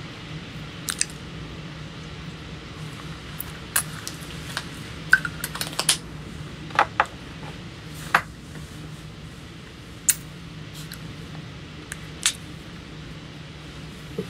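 Scattered light clicks and taps, about a dozen spread irregularly, over a steady low hum of room noise.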